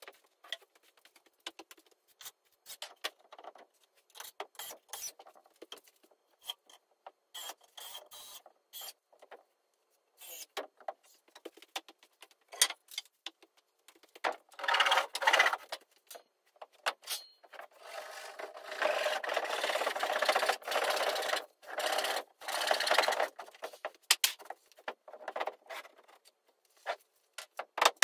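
Work on timber framing and sheathing boards: scattered knocks and clicks, with a scraping, rubbing stretch about a second and a half long some fourteen seconds in and a longer one of about five seconds starting near eighteen seconds.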